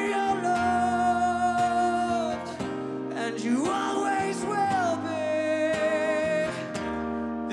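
Live acoustic ballad: a male lead singer holds two long notes, sliding up into each, the second about three and a half seconds in, over a strummed acoustic guitar.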